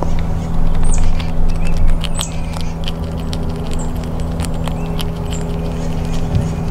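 Eastern gray squirrel chewing a peanut close to the microphone: irregular crunchy clicks over a steady low machine hum.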